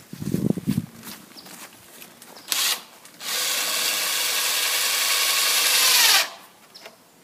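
Cordless drill driving a screw through a plastic septic tank riser into the lip of the old riser. A short burst of the motor comes about two and a half seconds in, then a steady run of about three seconds that drops slightly in pitch just before it stops. A dull bump is heard near the start.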